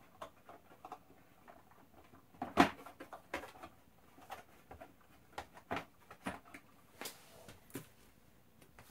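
Scattered light clicks and knocks as the Xbox One's sheet-metal shield plate is handled and lifted off the console, the loudest knock about two and a half seconds in.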